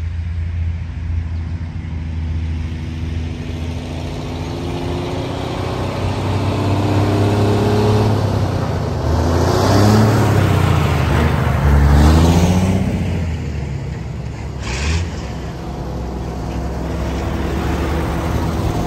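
Antique Brockway trucks driving past one after another. An engine grows louder and slides in pitch as a truck goes by about ten to twelve seconds in, with a short hiss a few seconds later, then another old truck's engine runs nearer the end.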